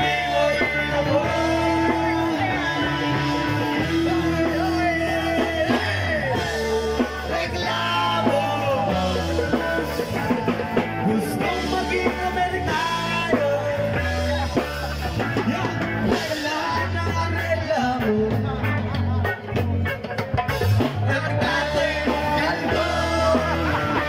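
Live rock band playing a song, a singer over drums and bass.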